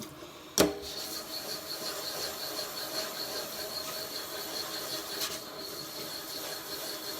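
Sharpening stones rubbed back and forth on a diamond plate to flatten and refresh their faces: a steady gritty scraping with a faint high ring, after a single knock about half a second in.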